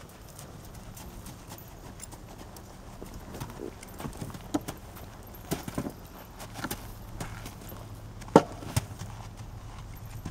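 Black Forest horse walking under a rider, hooves clip-clopping on gravel arena footing. There are scattered sharper knocks from about three seconds in as it steps through a star of wooden ground poles, the loudest a little past eight seconds.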